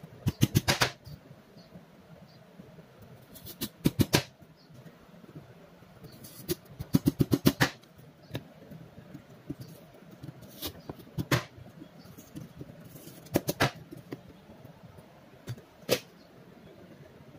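Knife chopping lotus root on a plastic cutting board: three short runs of quick chops, several strokes each, with single knocks of the blade on the board in between.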